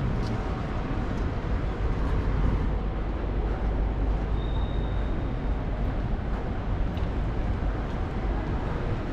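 Outdoor city background noise: a steady low rumble with no single event standing out.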